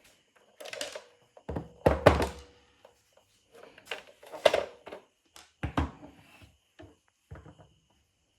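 A series of irregular knocks and thunks, as of hard objects being handled and set down on a work surface, the heaviest about two seconds in.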